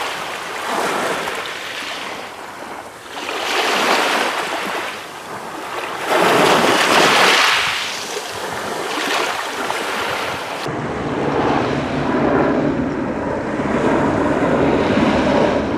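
Small waves breaking and washing up over a shingle beach, several swells one after another. About two thirds of the way through this gives way to a coastguard helicopter flying over, a steady low drone from its rotors and engines.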